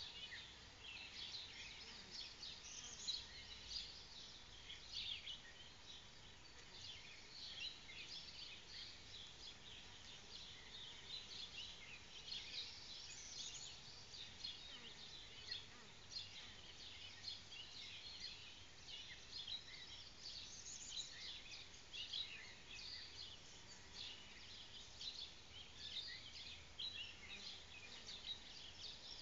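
Birds chirping and singing, a dense, irregular run of short high-pitched calls over faint outdoor background noise.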